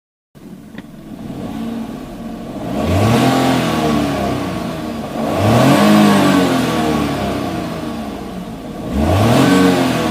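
Motorcycle engine revved three times, its pitch climbing and falling back each time.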